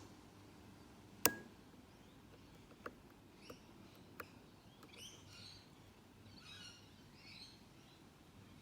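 Small metal clicks from a lock pick and tension wrench working the pin stack of a Mako padlock: one sharp ringing click about a second in, then three lighter ticks. Faint high chirps follow near the end.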